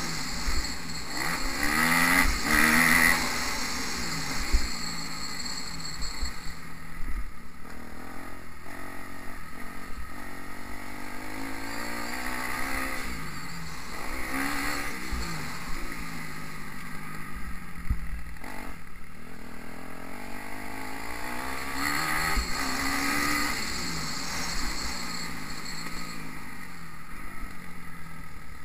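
Onboard sound of a motocross bike's engine, revving up and down over and over as the bike accelerates and backs off around a dirt track.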